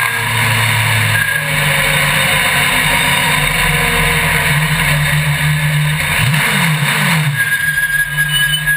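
Onboard sound of a small race vehicle running fast down a paved road: steady rumbling and rushing noise, with a pitch that dips and rises about six seconds in, turning uneven near the end.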